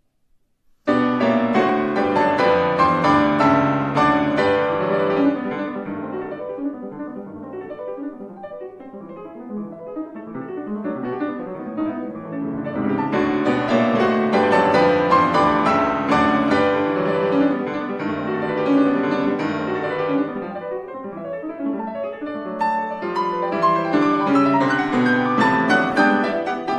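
Grand piano played solo: a classical piece that starts abruptly and loud with full chords about a second in, eases into a quieter passage, then grows loud again twice.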